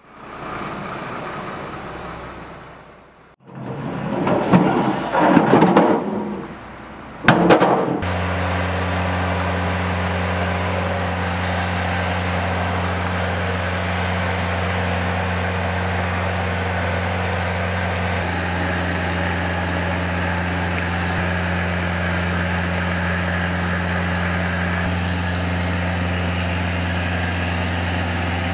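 A boom lift's engine running steadily at constant speed: a low, even hum from about eight seconds in. Before it come several seconds of louder, irregular clattering noise.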